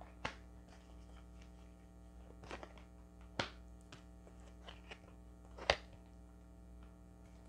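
Oracle cards being drawn from the deck and laid on a cloth-covered table: a few short sharp taps and card clicks, the loudest about two-thirds through, over a low steady hum.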